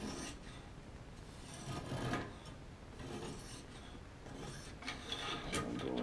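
A sharpening stone is stroked by hand along the edge of a Gerber multi-tool's knife blade held in a clamp. It makes a gritty rasping scrape in several separate strokes, with short gaps between them.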